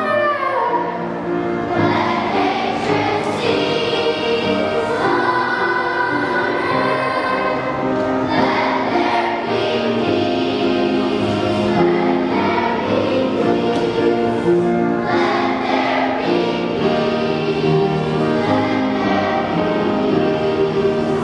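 Elementary school choir singing sustained notes over instrumental accompaniment.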